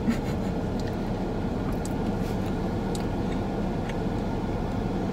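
Steady low rumble of background noise, with a few faint, short clicks.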